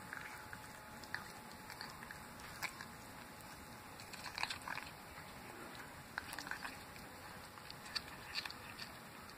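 Cat eating raw food from a plastic bowl: irregular small clicks and smacks of chewing and licking, in scattered clusters.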